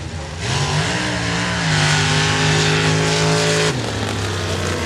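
Off-road vehicle engine revving hard: the pitch climbs quickly, holds at high revs for about two seconds, then drops off as the throttle comes off.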